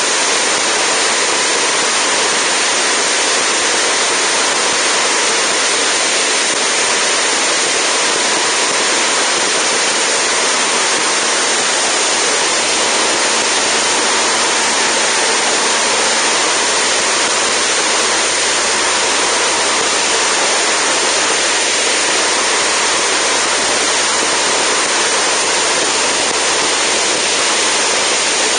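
Steady rush of wind over a camera mounted outside a Zenith STOL CH750 in flight, mixed with the plane's engine and propeller running at a constant setting.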